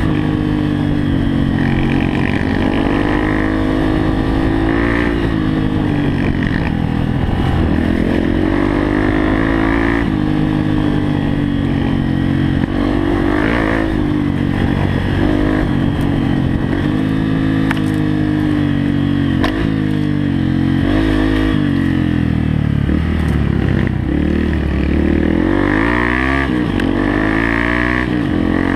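Dirt bike engine running under load, heard from on board, its pitch rising and falling again and again as the rider works the throttle and shifts gears.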